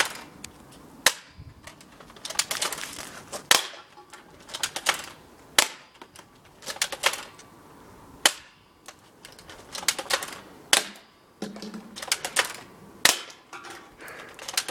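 Pump-action airsoft rifle being pumped and fired again and again: a string of sharp clacks and snapping shots, single or in quick clusters, about one every second or two.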